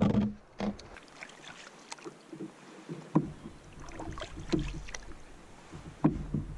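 Canoe handling sounds: scattered light knocks and clicks of paddle and fishing gear against the canoe hull over faint water movement. The clearest knocks come just after the start and at about 3, 4.5 and 6 seconds.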